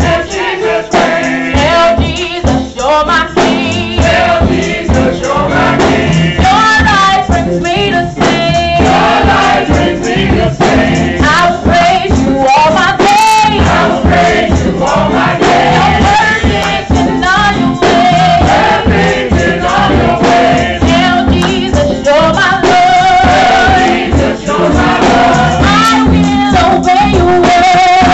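Junior church choir of children singing a gospel song, led by a young woman singing into a microphone; loud and continuous.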